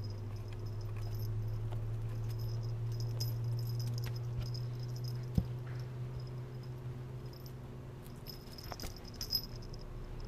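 A small bell on a kitten's collar jingling in scattered faint tinkles as the kitten plays, with a few louder jingles near the end and a single sharp tap about five seconds in. A steady low hum runs underneath.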